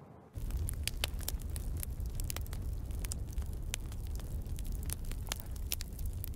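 Freshly lit pit fire of mixed desert scrap wood (cholla, palo verde, pinyon) catching fast, crackling with many sharp irregular pops. A steady low rumble runs underneath, and both start abruptly just after the beginning.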